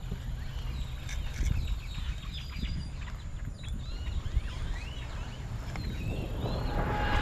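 Many birds chirping and calling in quick, short curved notes, over a steady low rumble of wind on the microphone; a rushing noise builds near the end.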